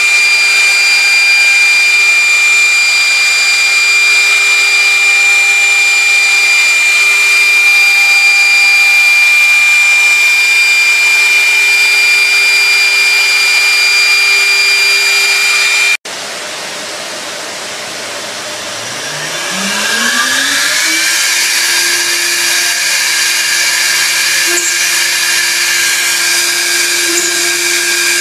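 Industrial machine motor running with a steady high-pitched whine and a few fixed tones; it cuts off abruptly about halfway through, then an electric motor spins up with a rising whine over about three seconds and holds a steady pitch.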